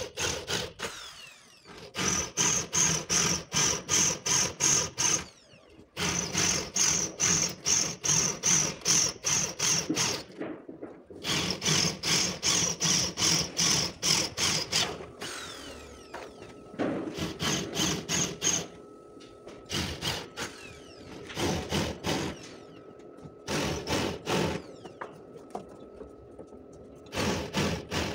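Handheld power drill biting into car-body sheet metal in runs of a few seconds, pulsing about three times a second, with short pauses between runs. The runs become shorter and more broken in the second half.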